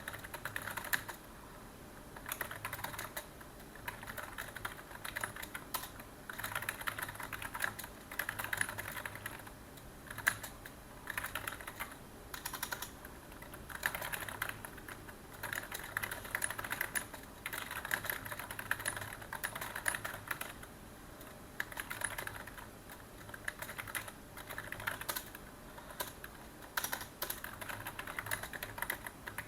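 Computer keyboard typing: fast runs of key clicks in bursts of a second or two, with short pauses between them.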